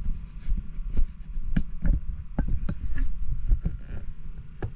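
A steady low hum with a scatter of irregular light knocks and clicks.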